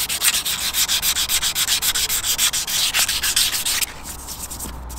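240-grit sandpaper rubbed by hand in quick back-and-forth strokes over an alloy wheel's painted spoke, smoothing away the scratch lines left by 80-grit paper. The rubbing stops about a second before the end.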